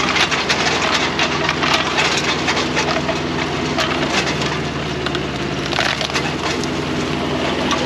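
Wood cracking and splintering in quick irregular crackles as a tree is pulled down, over the steady hum of an engine running.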